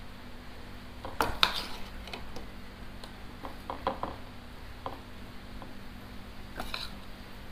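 Metal spoon scraping and clinking lightly against a ceramic plate while spreading mashed potato filling on bread: a few scattered soft clicks and scrapes.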